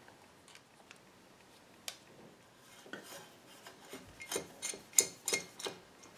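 Screwdriver work on a metal electrical switch box cover: a faint scrape and a single click, then a quick run of light metallic clicks and clinks as the cover and its screws are handled. The loudest clink comes about five seconds in.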